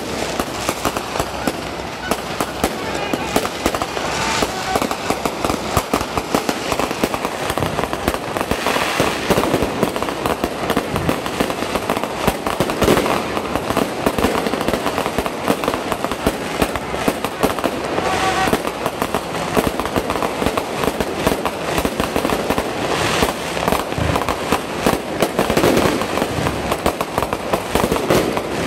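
Aerial fireworks going off in a continuous barrage of overlapping bangs and crackles, with no pause.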